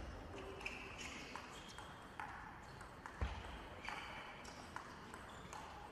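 Table tennis rally: the ball clicking off the bats and the table in a quick back-and-forth series of sharp ticks, one hit louder a little over three seconds in.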